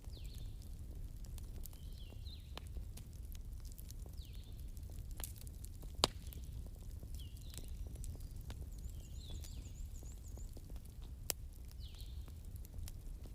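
Bonfire crackling: a steady low rumble of burning with scattered sharp pops, the loudest about six seconds in and another near the end. Faint short high chirps recur every couple of seconds.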